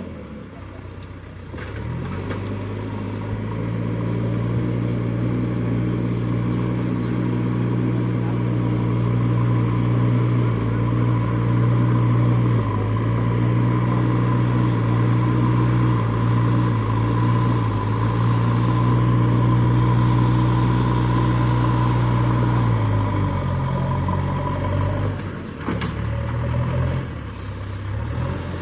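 JCB backhoe loader's diesel engine pulled up to higher revs about two seconds in and held there under working load, then dropping back toward idle near the end, with a steady higher whine running alongside; the machine is being load-tested after a repair.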